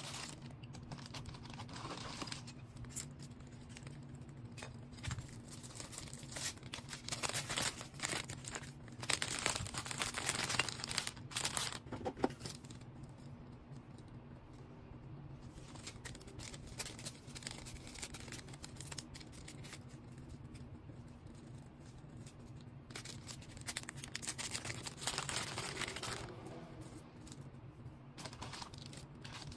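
Packaging being handled by hand: irregular crinkling, rustling and tearing, busiest about a third of the way in and again near the end, over a faint steady low hum.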